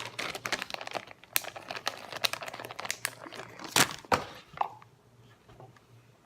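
Plastic packaging crinkling and rustling as it is handled, with one sharp snap a little past halfway, after which the handling goes quieter.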